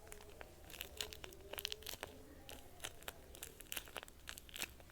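Faint crinkling and crackling of paper and tape being handled, in many short irregular clicks.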